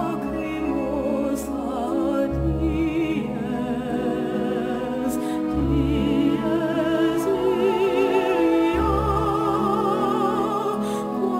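Orchestral soundtrack music with an operatic solo voice singing with vibrato, over deep bass notes that come in about every three seconds.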